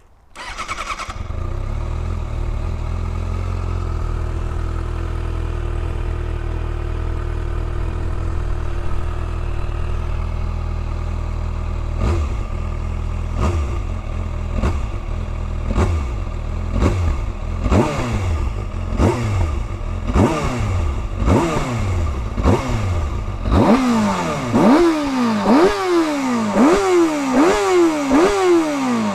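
2020 Kawasaki ZX6R 636's inline-four engine catches and settles into a steady idle. From about twelve seconds in, the throttle is blipped in short revs, and near the end it is revved higher in quick repeated blips, about one a second.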